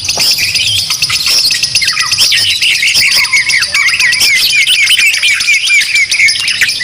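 Caged white-rumped shamas singing loudly at once, a dense tangle of whistles and chatter. Through the second half one bird repeats a short hooked note about three times a second.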